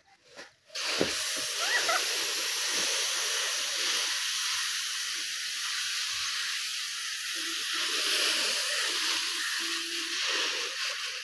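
Paddy (unhusked rice) pouring in a steady stream from a sack onto a concrete roof: a continuous grainy hiss that starts suddenly about a second in and eases off near the end.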